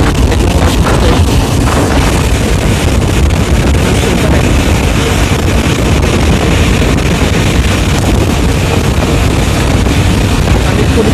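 Loud, steady wind buffeting the microphone from an open window of a fast-moving vehicle, with the rumble of the vehicle's travel underneath.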